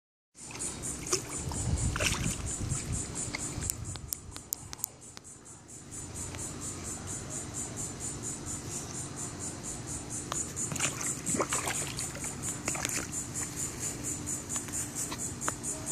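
Bulldog lapping and splashing in shallow pond water as it drinks and wades, with scattered wet splashes. Behind it, a steady insect chorus pulses about four times a second, and a brief low rumble comes about two seconds in.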